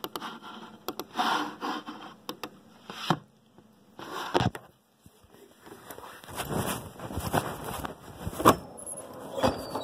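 Phone handling noise: a scatter of knocks, clicks and scrapes as the phone is moved about, then from about six seconds in a steady rustle of fabric rubbing over the microphone with regular knocks, as the phone rides in a pocket or bag.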